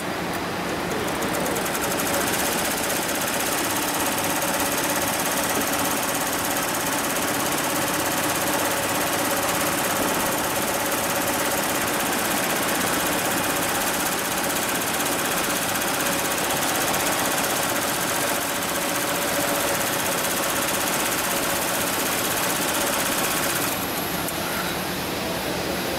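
HIGHTEX 7201 single-head, 12-needle embroidery machine stitching at speed: a rapid, steady clatter of the needle mechanism. The clatter drops away about two seconds before the end, leaving a lower machine hum.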